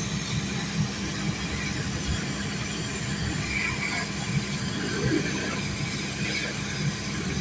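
Large boat-handling forklift running steadily as it drives slowly across the yard with a boat raised on its forks, with a low, even hum throughout.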